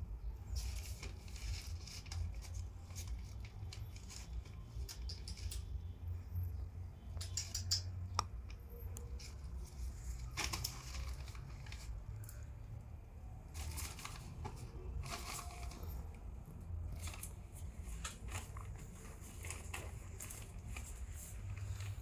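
Plastic crinkling and rustling in short irregular bursts as kittens scamper and play on it, over a low steady rumble.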